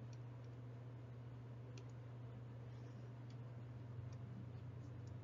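A few faint, separate clicks from a stylus on a tablet, over a steady low hum.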